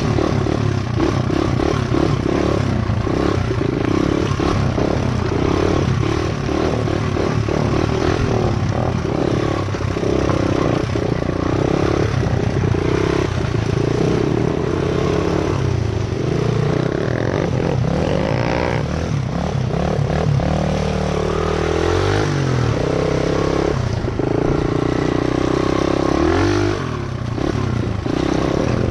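Motorcycle engine running under way, its revs rising and falling as it is ridden, with clattering over rough ground.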